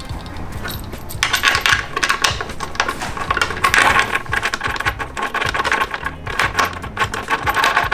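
Small brass brake-line fittings and a T-piece clinking and rattling against each other as they are handled, a dense run of light metallic clicks starting about a second in.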